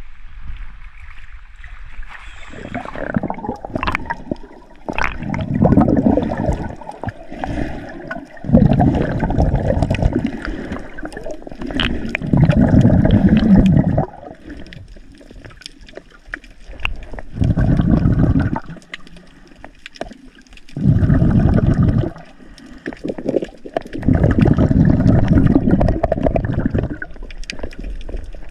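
Water sloshing and gurgling around a submerged action camera as a snorkeller swims, in muffled surges of a second or two every few seconds, over faint scattered clicks and crackles. The surges begin about two seconds in.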